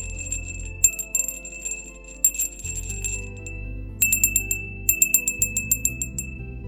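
Small high-pitched bell shaken in quick runs of rapid tinkling strikes, with a pause a little past the middle, over soft background music. Its light, twittering ring is like a little bird chirping.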